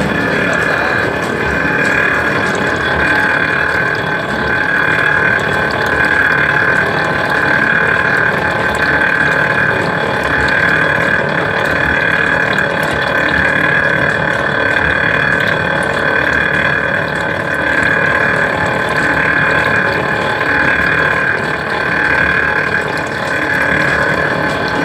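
Coconut oil press machine running steadily, a continuous mechanical whine with a gently swelling tone, as pressed oil runs out of its spout.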